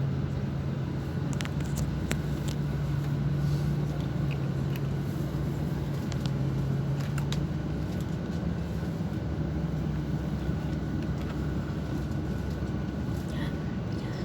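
Mercedes-Benz O-500RSD double-decker coach's diesel engine running at a steady speed: an even low hum that holds its pitch, with a few faint clicks over it.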